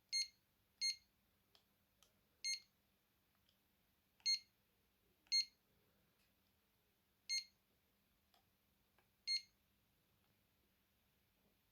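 Alcatel One Touch Easy mobile phone giving a short, high key beep at each button press while stepping through its menus: seven beeps at uneven intervals, with faint key clicks between them.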